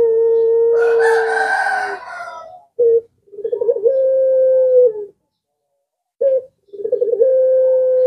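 Puter pelung (Barbary dove) cooing again and again. Each call is a short note, a quick rolling stutter, then a long, steady drawn-out coo. A harsher, noisier call from another bird overlaps the first long coo about a second in.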